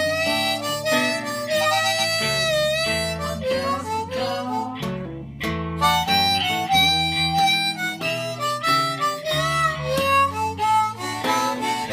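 Harmonica solo with bending, gliding notes over acoustic guitar accompaniment: an instrumental blues break.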